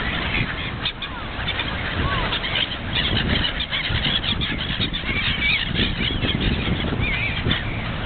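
A large flock of gulls calling, many short harsh cries overlapping without a break, over a steady low rumble.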